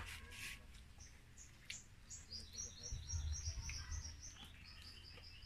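A small bird chirping: from about two seconds in, two quick runs of short, high chirps, several a second, with a brief break between them. A few soft clicks of food and packaging being handled come before it.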